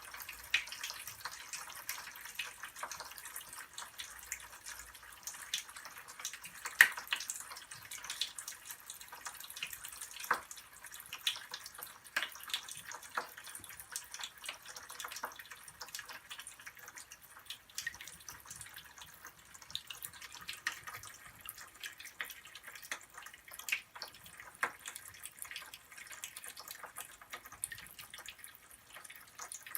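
Mr. Bubble Magic Bath Crackles popping in water: a steady scatter of small irregular crackles and clicks, with an occasional louder pop.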